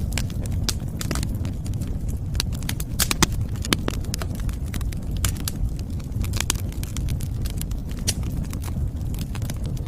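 Wood fire crackling, with irregular sharp pops over a steady low rumble; one pop a little over three seconds in stands out.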